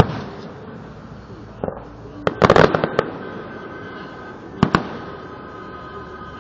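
Fireworks bursting: a sharp bang at the start, a rapid cluster of crackling pops two to three seconds in, and a quick double bang near the end.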